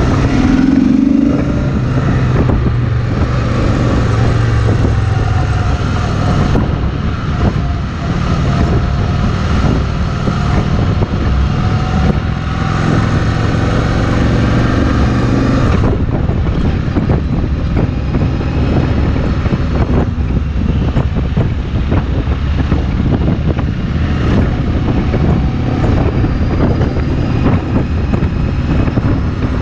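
Kawasaki VN2000's big V-twin engine running at a steady cruise, with wind rushing over the microphone.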